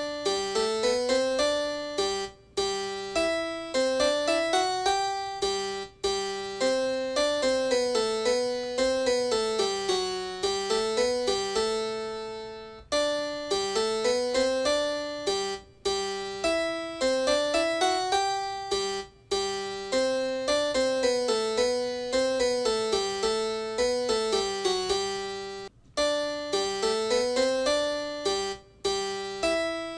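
Background music: a keyboard tune of quick, decaying notes in flowing phrases, with short breaks between phrases every few seconds.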